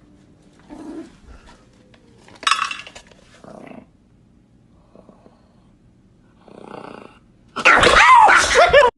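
A small dog gives a loud, wavering cry lasting about a second near the end, after a few quiet scattered sounds.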